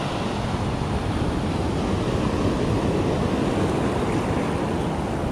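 Small ocean waves breaking and washing up the sand at the shoreline, a steady wash of surf, with some low wind rumble on the microphone.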